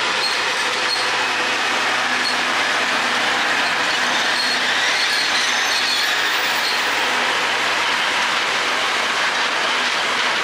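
Alishan Forest Railway diesel train, its locomotive and passenger cars rolling slowly past on the narrow-gauge track: a steady rumble of wheels on rails with a faint high squeal over it.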